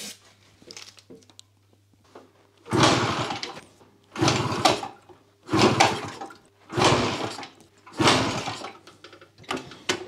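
Yamaha FS1's single-cylinder two-stroke moped engine being cranked over five times, about one attempt every second and a half, without catching: it does not start.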